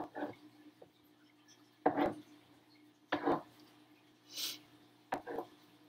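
Kitchen knife slicing button mushrooms on a plastic cutting board: a handful of short, irregular knocks, about a second or more apart, as the blade cuts through and strikes the board.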